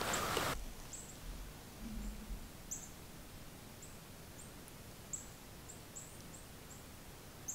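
Small birds giving short, high chirps, about a dozen scattered notes, over a quiet outdoor background. A short rush of noise at the very start cuts off abruptly about half a second in.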